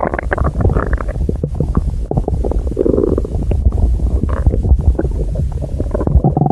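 Stomach growling and gurgling: a pitched growl fading in the first half-second, then a run of low gurgles and small pops, with another short growl about three seconds in.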